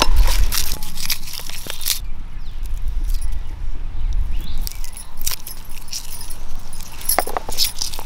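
Glass bangles clinking and jingling on a wrist as hands cut and peel shallots and garlic over a bamboo tray, in many short, sharp, irregular clicks. A low rumble runs underneath.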